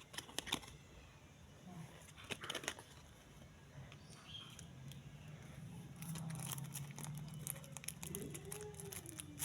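Pokémon card packaging being handled: the wrapper crinkling and tearing in a few short bouts of crackling.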